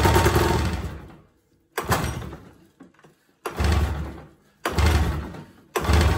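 Polaris 770 big-bore two-stroke snowmobile engine being pull-started: about five hard pulls, roughly one every second and a half, each spinning the engine over briefly without it firing. One spark plug is only hand-tight and squirts fuel out, and the engine fails to start.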